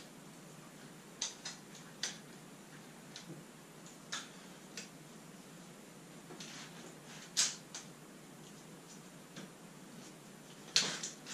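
Scattered light clicks and taps of hands working the locking pins and battery housing of a Chasing M2 underwater drone. The loudest comes about seven seconds in, with a quick cluster near the end.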